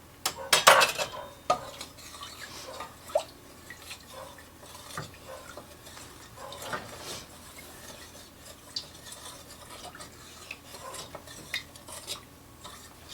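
A loud clatter of cookware about half a second in, then a spoon stirring, scraping and clinking in a saucepan of sugar water as the sugar dissolves.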